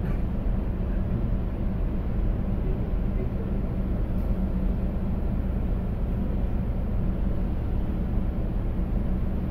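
Steady low drone of a container ship's machinery heard on its enclosed bridge while underway, with a few unchanging hum tones.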